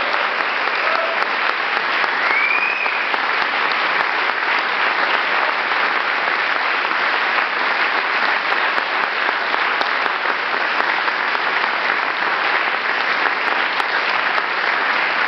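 Audience applauding, a dense, steady clapping that holds at an even level throughout.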